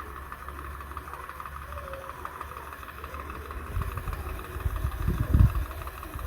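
A small motor running steadily with a fast, even ticking rattle, and a few low knocks about four to five and a half seconds in.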